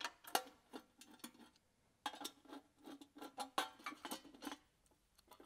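Faint, irregular metallic clicks and taps of a hand driver working the screws of a pump's steel coupling guard as the guard is taken off.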